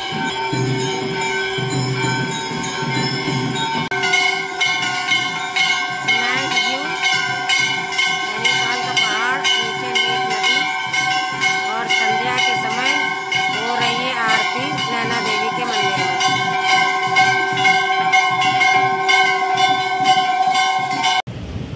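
Many Hindu temple bells ringing at once, with rapid overlapping strikes over a steady wash of ringing tones; it cuts off suddenly near the end.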